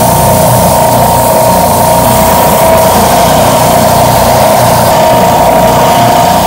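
Benchtop spindle belt sander running with a steady whine while a wooden block is pressed against the moving belt.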